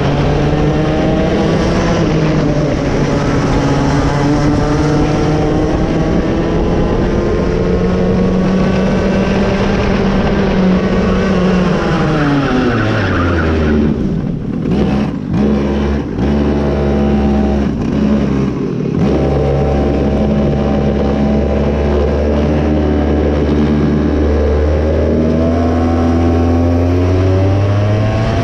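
Raket 120 two-stroke kart engine running under changing throttle, its pitch rising and falling with speed. About halfway through it drops sharply to a low, steady note, breaking off briefly a few times, then climbs again near the end as the kart accelerates.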